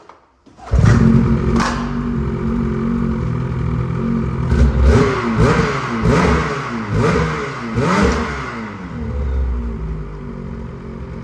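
Gen 5 Turbo snowmobile engine on its stock exhaust starting up about a second in and idling, then revved in several quick blips of the throttle before settling back to idle.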